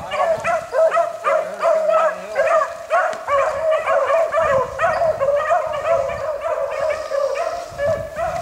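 A pack of rabbit hounds baying in chorus, many overlapping voices calling several times a second without a break: the hounds giving tongue as they run a freshly jumped rabbit's trail.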